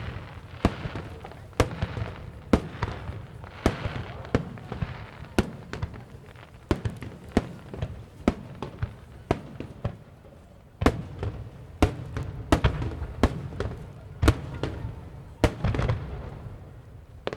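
Aerial fireworks shells bursting one after another, sharp bangs about one or two a second with low rumbling echoes between. A short lull a little past the middle, then a denser run of bangs.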